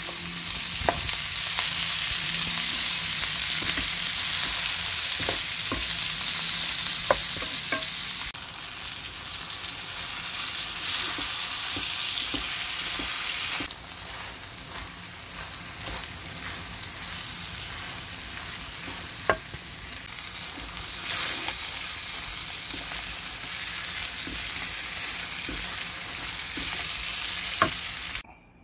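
Spicy Korean stir-fried squid (ojingeo-bokkeum) being stir-fried in a pan: a steady sizzle as onions, carrots and squid are turned with a wooden spatula, with occasional sharp clicks of the spatula against the pan. The sizzle drops in level about a third of the way through, once the squid is coated in red chili sauce.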